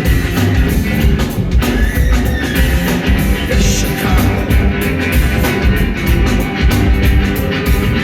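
Live rock band playing loudly, with a steady drum beat and heavy bass.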